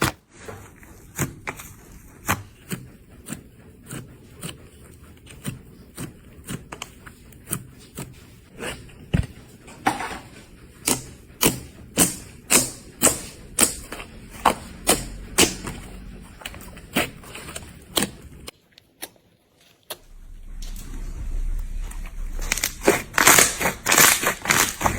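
Slime being pressed and squeezed, giving sharp clicking pops about two to three a second. After a short break, dense crunching and crackling of crunchy slime builds up loud near the end.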